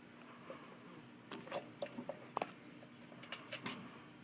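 A dozen or so faint, scattered light clicks and taps over a low steady hum.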